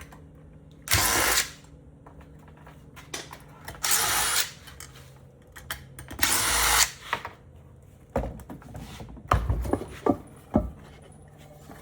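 Electric Phillips screwdriver running in three short bursts, backing out the lid screws of a Hiblow HP60 septic air pump, followed by a cluster of clicks and knocks as the screws and lid are handled.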